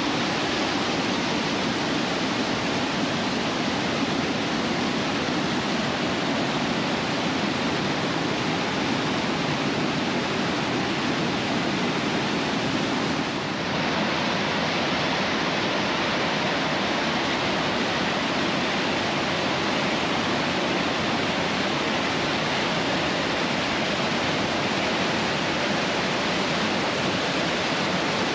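Whitewater of a mountain creek rushing over and around boulders: a steady, dense rush of water that changes slightly in tone about halfway through.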